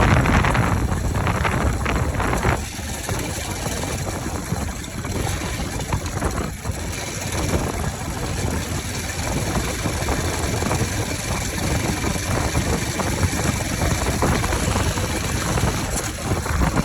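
Bajaj Pulsar RS200's single-cylinder engine running with its air filter removed, so the intake is open. It is louder for the first couple of seconds, then settles into steady running.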